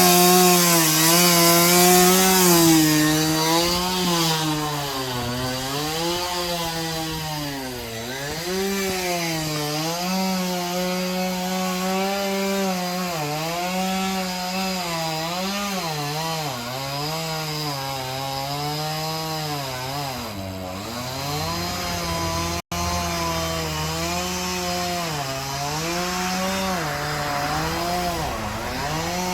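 Chainsaw running under load while cutting through a tree limb, its engine pitch sagging and rising again every second or two as the chain bites into the wood.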